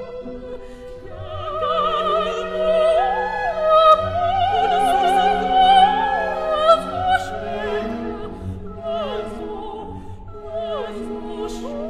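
Operatic singing over an orchestral accompaniment, the voice holding long notes with a wide vibrato.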